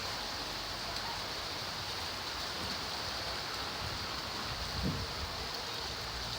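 Steady rain falling, an even hiss of many drops. A short low thump about five seconds in.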